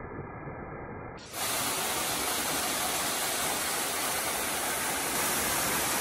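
Narrow waterfall cascading down a rock face: a steady rush and hiss of falling water. About a second in, the sound jumps louder and brighter at an edit and then holds steady.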